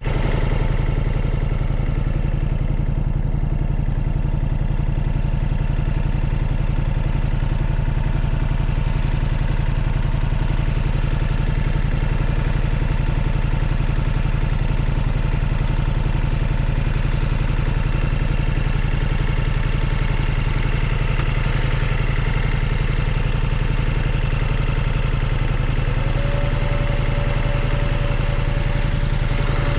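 Ducati Multistrada V4 S motorcycle's V4 engine running steadily, a low even rumble with no change in speed.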